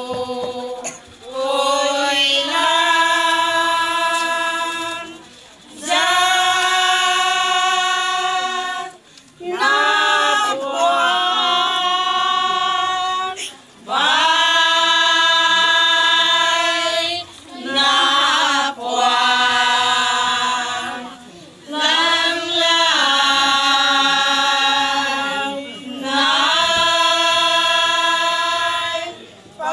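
A group of women singing a song together in unison, without accompaniment, in long held notes. Phrases last a few seconds each, with short breaks for breath between them.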